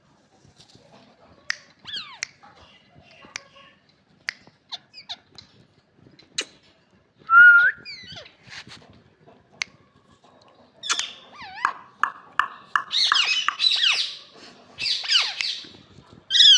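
Rose-ringed parakeets calling: sharp clicks and short gliding squawks at first, then a busy run of harsh screeching calls through the second half.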